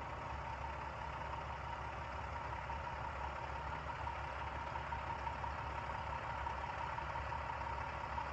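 A school bus engine idling steadily, with a thin steady whine over the low hum.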